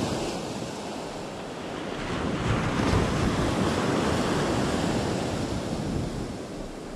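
Surf breaking and washing up a sandy beach, with wind rumbling on the microphone. A wave swells in about two seconds in, is loudest in the middle and eases off near the end.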